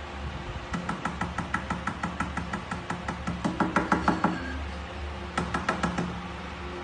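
Rapid light knocking on a glass tabletop, about six or seven taps a second, in a long run and then a shorter second run.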